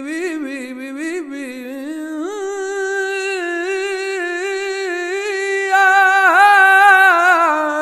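A man singing a flamenco fandango unaccompanied: a long melismatic phrase without words, with wavering ornaments on held notes, growing louder about six seconds in.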